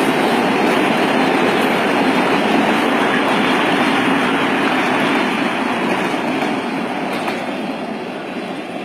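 Freight train passing, a steady, loud rolling noise of its wagons on the rails that fades gradually over the last few seconds.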